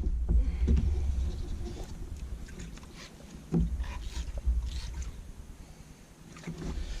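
Gear being handled in a small fishing boat: scattered knocks and clicks, one louder knock about halfway through, over a low uneven rumble that fades by the middle.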